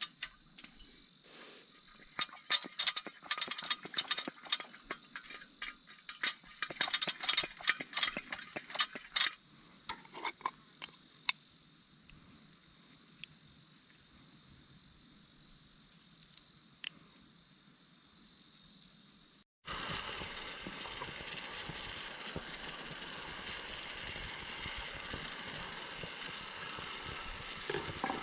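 Insects chirring steadily in a high, even band, with a run of sharp clicks and knocks in the first half. About two-thirds of the way through, the sound cuts abruptly to a louder, steady hiss.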